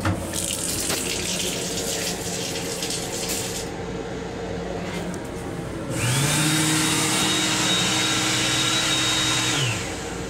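A sensor faucet in a train restroom sink runs water for about three and a half seconds. About six seconds in, the built-in sensor hand dryer starts up, blowing air with a steady high motor whine for nearly four seconds. Its pitch then falls away as it shuts off.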